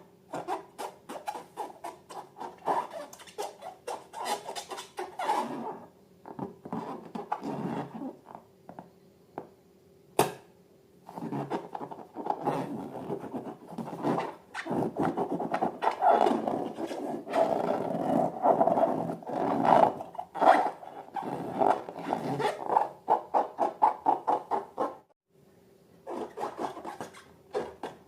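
Slime being mixed and squished by hand: dense runs of quick, sticky crackles and clicks in bursts, with a lull of a few seconds about a quarter of the way in and one sharp click after it.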